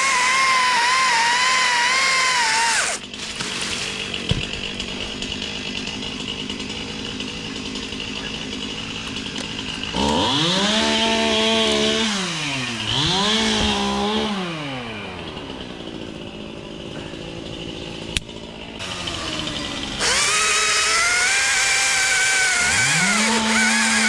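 Two-stroke chainsaw running at high speed, dropping back to a lower, quieter note about three seconds in. It is revved up and let down twice around the middle, and revved up again near the end.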